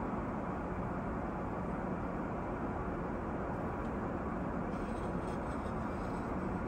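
Steady cabin noise of an Airbus A380-800 in cruise flight: an even, unbroken rush of airflow and engine drone.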